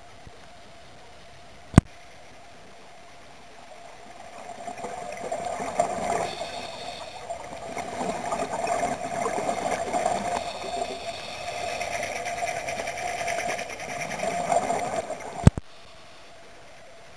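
Muffled underwater noise from a camera filming in the sea: a fluctuating wash with a steady hum swells in about four seconds in and stops suddenly with a sharp click near the end. Another sharp click comes about two seconds in.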